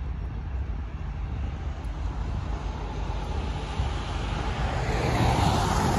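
Wind rumbling on the microphone, with a car's tyres hissing on wet pavement that grows louder over the last couple of seconds as the car approaches.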